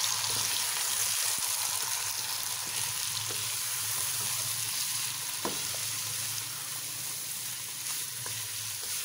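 Mutton and a yogurt-onion masala sizzling steadily in a non-stick kadhai as they are stir-fried (bhuna) with a spatula, with a few light knocks of the spatula against the pan.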